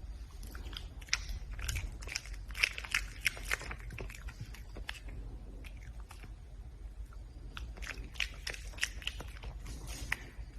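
Red panda chewing food with crisp, crunching bites, in two bouts of rapid crunches with a short pause between.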